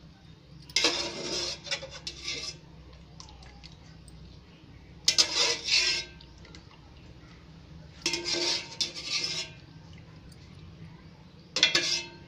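Steel ladle scraping and clinking against the inside of an aluminium pot, in four bursts about three seconds apart, as cooked pasta is scooped out of its cooking water.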